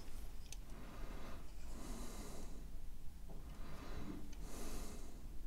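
Close-up breathing through the nose: about three slow breaths, with a couple of faint clicks from plastic model parts being handled.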